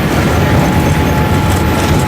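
Boeing 787-8 cabin noise: a loud, steady low rumble with a thin steady whine above it.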